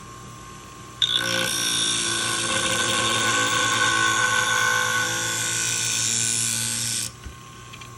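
Scissor blade being ground on the spinning abrasive wheel of a Wolff Twice as Sharp scissor sharpener: a steady grinding that starts about a second in and lasts about six seconds, over the machine's motor hum. The pass takes out the last chewed-up section of the edge.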